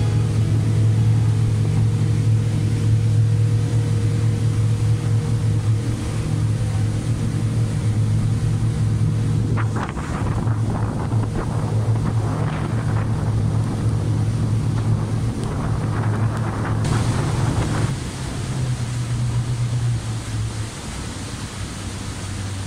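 Sightseeing riverboat's engine running with a steady low hum, with water rushing past the hull. The engine's level drops about three-quarters of the way in and again near the end.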